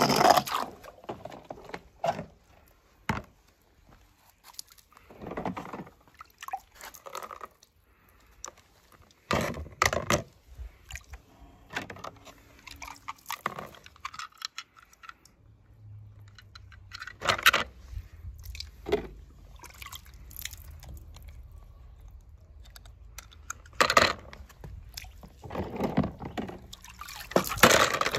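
Water splashing and dripping in irregular bursts, with a low steady hum coming in about halfway through.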